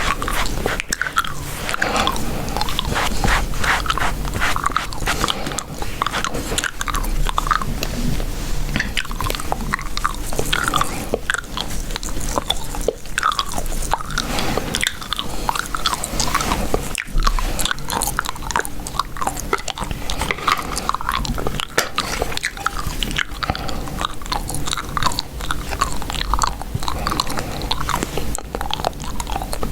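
Gum being chewed right at the microphone: a continuous run of wet, clicking chews and mouth smacks.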